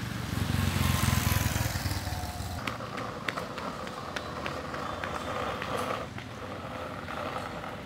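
A motor vehicle's engine passing close by, loudest about a second in and fading away after about two and a half seconds, followed by street background noise with scattered clicks.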